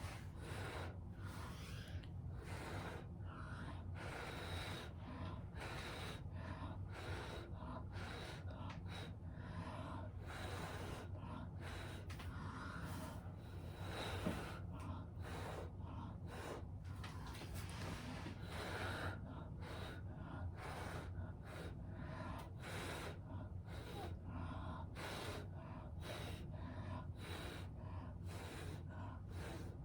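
A person blowing hard through the mouth in a long series of short puffs, pushing a puddle of wet acrylic paint out across a canvas in a Dutch-pour blow-out.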